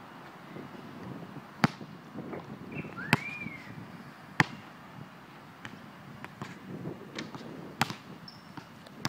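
A basketball bouncing on a concrete outdoor court: four sharp smacks spaced unevenly a second or more apart, with a few fainter knocks between. A short rising-and-falling chirp about three seconds in.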